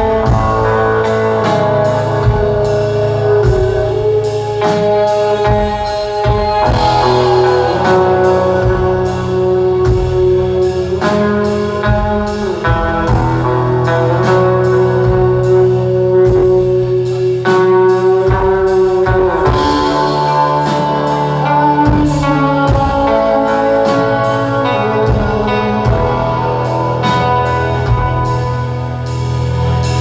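A live shoegaze band playing, heard from within the audience: sustained, layered electric guitar chords over bass and a steady drum beat.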